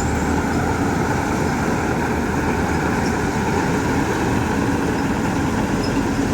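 Kartar 4000 combine harvester running steadily, a loud continuous mechanical drone.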